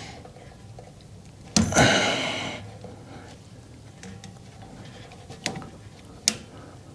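Small metal clicks and taps of a hand pick working a clip back onto a snowblower drive chain, a few sharp ticks near the end. A louder sound lasting about a second comes near two seconds in.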